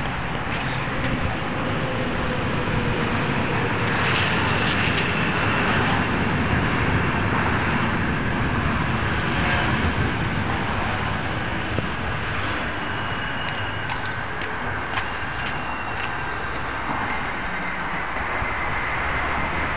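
Steady rumble of vehicles, with thin high-pitched squealing tones coming and going in the second half and a few sharp ticks.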